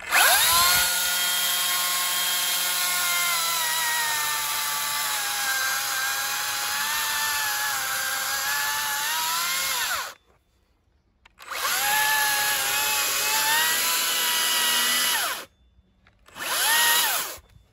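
Makita DUC405Z 36 V cordless chainsaw running and cutting into a tree stump, its chain cutting easily through the wood. It runs in three goes: a long cut of about ten seconds, a stop, a second cut of about four seconds, and a short burst of about a second near the end. The motor's pitch sags a little under load and rises again as the trigger is released.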